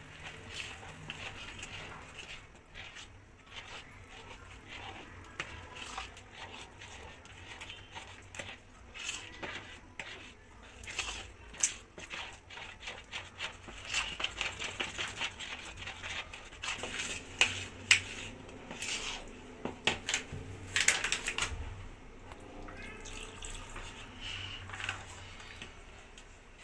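Plastic spatula stirring and scraping thick cake batter around a plastic mixing bowl: a run of soft wet scrapes and small clicks, quicker and louder a little past the middle.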